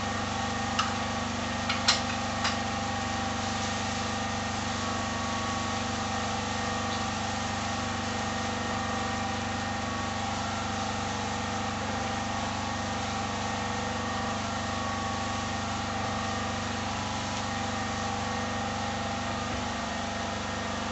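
A backup power generator's engine running steadily in the background, a constant unchanging drone. A few light utensil knocks against the pan in the first few seconds as the keema is stirred.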